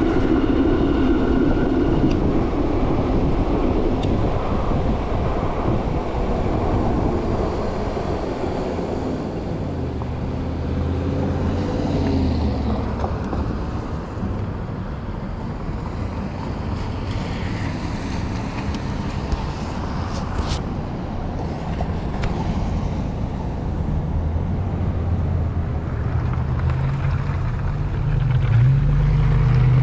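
Riding noise from an electric bike on the move: wind buffeting the microphone over a steady road rumble. A low hum grows louder near the end.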